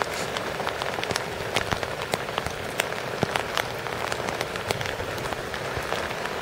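Steady hiss of moving water, dotted with many sharp, irregular patters and splashes.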